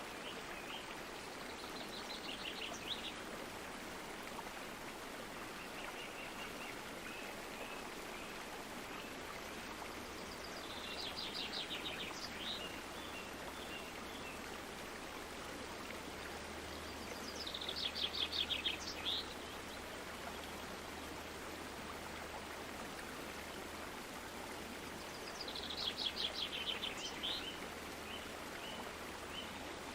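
Steady rush of flowing stream water, with a bird singing short rapid trills four times, about every seven or eight seconds.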